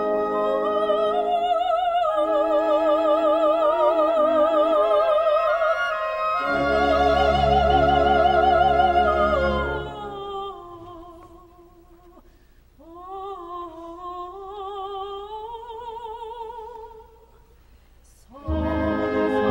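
A female classical singer with orchestra performing a Korean art song (gagok) in operatic style: long held 'ah' notes with wide vibrato over the strings, with a deep orchestral swell underneath around the middle. The music then thins to a softer, rising sung line, falls almost silent briefly, and comes back in loudly near the end.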